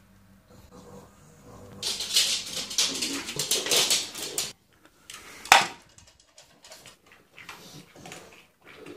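Dry dog kibble poured into a dog bowl: a dense rattling patter for about three seconds. Then one sharp knock, followed by faint scattered clicks.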